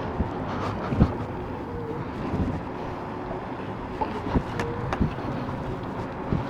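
Riding noise from an e-bike on the move: a steady rush of wind and tyre noise, with a few sharp knocks.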